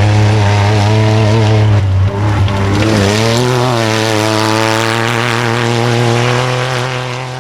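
Rally vehicle engine running hard at high, steady revs, with a brief drop and rise in pitch about two to three seconds in; it eases off a little near the end.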